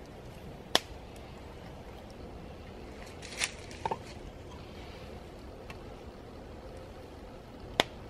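A few sharp clicks and knocks from handling thin wooden poles and a roll of twine while lashing them down: one loud click about a second in, a short scrape and a quick double knock near the middle, and another loud click near the end.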